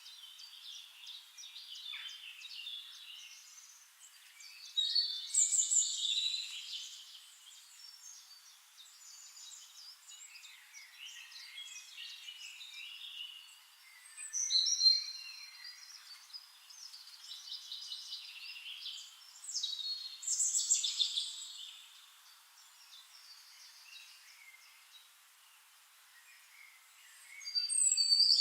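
Songbirds singing: bursts of high chirps and quick trills every few seconds, loudest about five, fifteen and twenty seconds in, with quieter chirping between.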